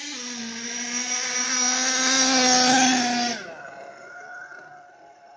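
HPI Savage 4.6 RC monster truck's small two-stroke nitro engine running at steady high revs, growing louder, then dropping sharply in pitch and level about three and a half seconds in, leaving a faint fading whine.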